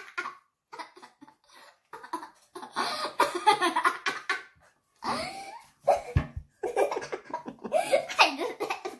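A girl laughing hard in repeated bursts of belly laughter, with a couple of low thumps about six seconds in.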